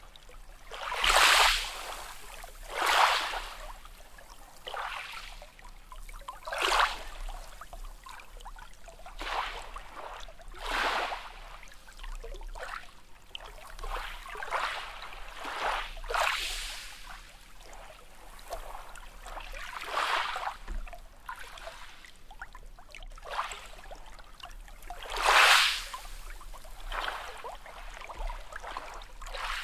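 Sea waves lapping and splashing in short swells every second or two, the strongest near the start and near the end.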